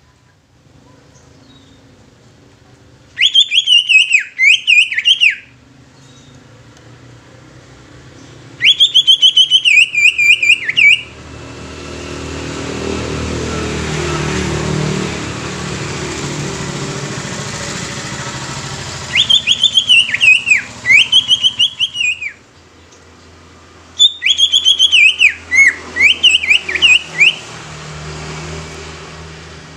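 Greater green leafbird (cucak ijo) singing in four loud bursts of rapid whistled notes that swoop down and up, each burst two to three seconds long. Between the second and third burst, a passing vehicle swells and fades, a rumble with a hiss.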